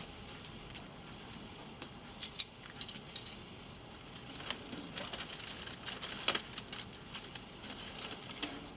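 Aluminium foil crinkling and crackling as a foil-wrapped packet of ribs is opened, in irregular bursts, the sharpest crackles coming about two to three seconds in.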